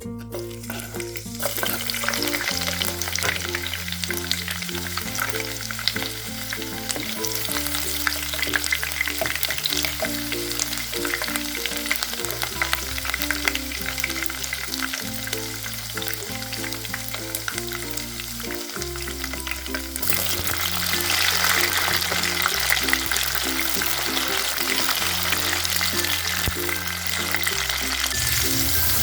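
Sambal ingredients frying in hot oil in a pan: a steady sizzle and crackle that starts about a second and a half in and grows louder about two-thirds of the way through, with background music.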